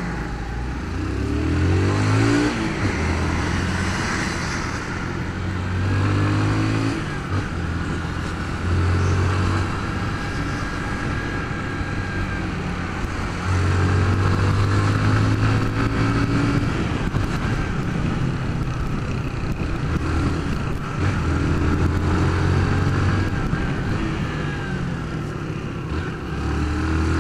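Honda CG 150 Fan's single-cylinder four-stroke engine under way, heard from the bike itself. Several times over it pulls up in pitch through the gears and holds, with short drops between as the throttle is rolled off or a gear is changed.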